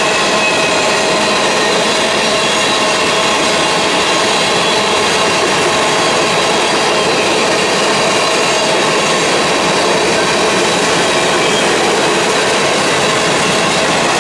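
Freight cars of a long mixed freight train rolling past at speed: steel wheels on rail making a loud, steady rolling din, with a few thin steady high tones ringing over it.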